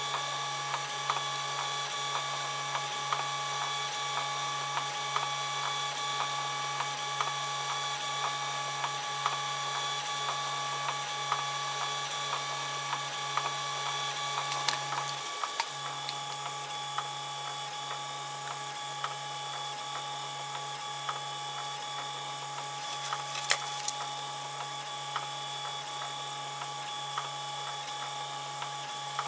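3D printer running a print, its stepper motors giving a steady whine with faint regular ticks about twice a second. There is a brief pause about halfway through and a single sharp click near the end.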